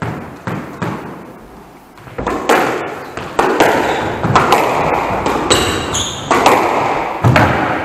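Squash rally: the ball cracking off rackets and smacking the walls and floor in quick succession, every hit echoing around the enclosed court, with a few sharp knocks in the first second before the rally gets going and shoes squeaking on the wooden floor about two thirds of the way through.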